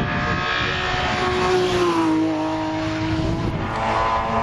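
BMW saloon race car's engine at high revs as it goes past. Its pitch slides down about two seconds in, then holds steady.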